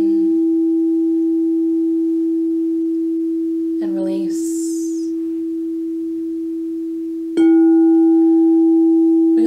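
Frosted quartz crystal singing bowl ringing with one steady, pure low tone that slowly fades. It is struck again with a mallet about seven seconds in, and the tone swells back up.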